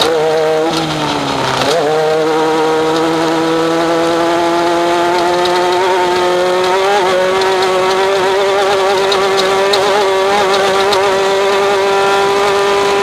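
Off-road race vehicle's engine at high revs, heard from onboard. The revs sag briefly about a second and a half in, then pick back up and hold steady, creeping slightly higher.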